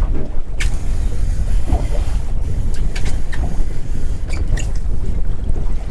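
Wind buffeting the microphone in a steady low rumble over choppy water around a small boat, with a few scattered sharp ticks and taps.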